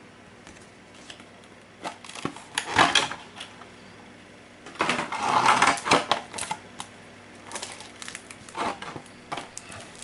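Hands handling board-game cards and packaging on a table: scattered clicks, taps and short rustles, loudest about two to three seconds in and again around five to six seconds in.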